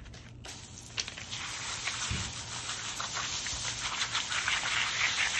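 Garden hose spray nozzle jetting water onto bare feet and flip-flops on concrete, a steady hiss and patter. The spray starts about half a second in, with a click near the one-second mark, and grows slightly louder.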